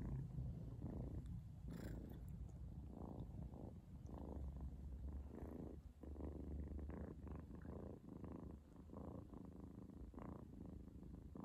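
A kitten purring close up, a low steady rumble that swells and dips in a slow rhythm.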